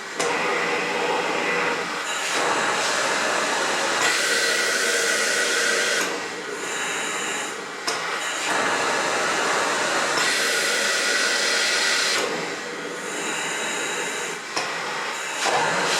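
Philips Respironics CoughAssist E70 cough-assist machine (mechanical insufflator-exsufflator) running its cough cycles. Its blower rushes air loudly, pushing air in and then pulling it back out. It eases off twice between cycles, then picks up again.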